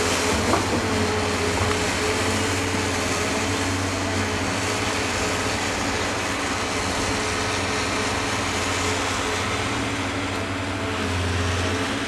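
Tracked excavator's diesel engine running steadily: an unchanging drone under an even hiss.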